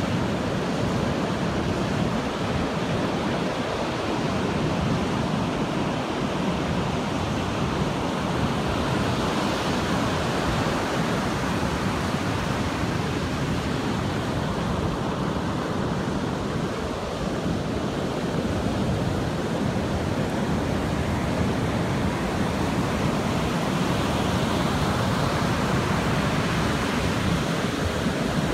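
Ocean surf: rows of waves breaking and washing up a sandy beach in a continuous rush of noise, swelling slightly now and then as a set breaks.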